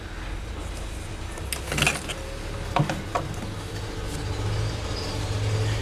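Handling noise at a workbench as a laptop motherboard and multimeter probes are moved: a few light clicks and knocks about two and three seconds in, over a low steady hum.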